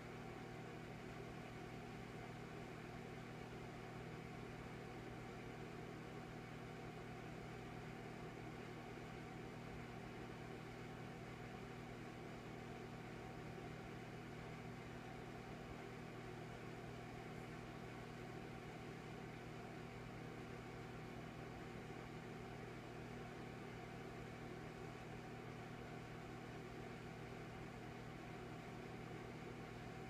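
Electric fireplace's flame-effect unit running with a faint, steady low hum and a soft hiss.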